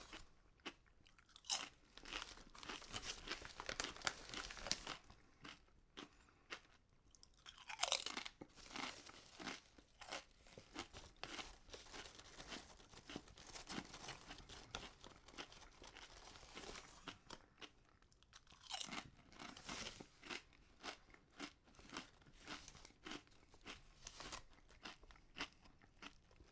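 Potato chips being bitten and chewed close to the microphone: sharp crisp crunches, a few loud bites standing out among steady rapid chewing.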